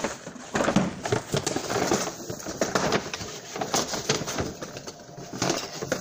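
Hands rummaging through a box of Nespresso coffee capsules: irregular clicks, taps and rustling as capsules and the box are handled.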